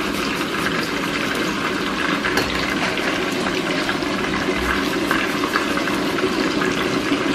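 Chicken breast and sliced onion frying in oil in a pan, a steady sizzling hiss with many small crackles.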